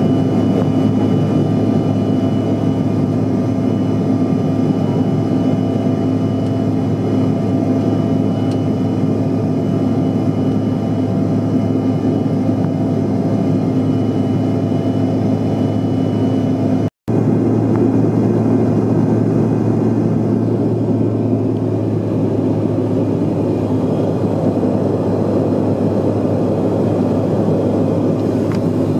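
Steady cabin noise of a CRJ-900 regional jet climbing, heard from inside the cabin: the two rear-mounted GE CF34 turbofans and the airflow give a constant hum and rush. The sound cuts out for an instant a little past halfway.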